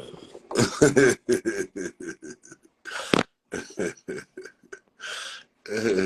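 A person's voice in a string of short, broken bursts, with no clear words.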